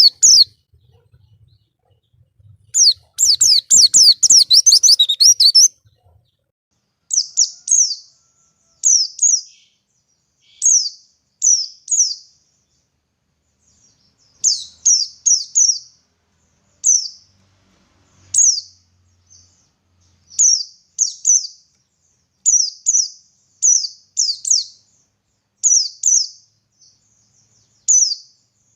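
White-eye (pleci) calling: a fast run of high twittering notes a few seconds in, then short, high, down-slurred chirps, singly and in twos or threes, every second or two.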